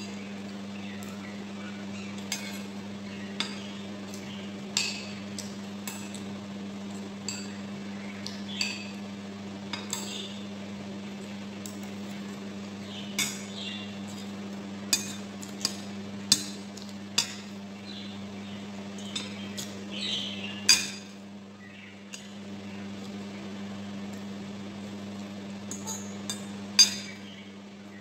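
Metal spoon and fork clinking against ceramic bowls as food is scooped, in irregular clinks every second or so, the loudest near the end, over a steady low hum.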